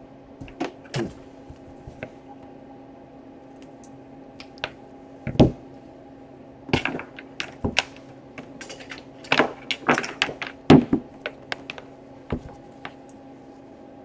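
Scattered knocks and clicks of a laptop power adapter, its cable and a pair of wire cutters being handled and set down on a table, with two louder knocks about five and eleven seconds in. A faint steady hum runs underneath.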